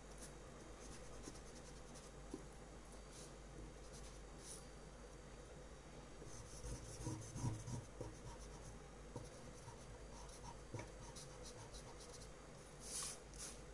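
Pencil sketching on paper: faint scratchy strokes, with a few louder strokes about halfway through and near the end.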